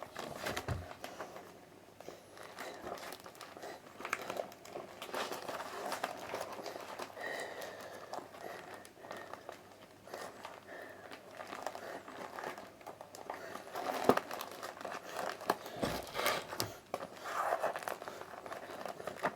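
Crinkling and rustling as comic books and their packaging are handled, with small irregular clicks and crackles.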